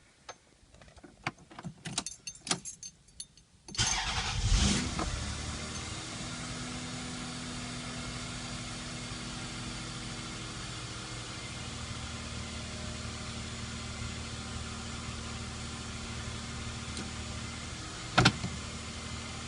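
A few light clicks, then a 1996 Toyota Avalon's 3.0-litre V6 starts about four seconds in, flaring briefly before settling into a steady idle. A single sharp click near the end.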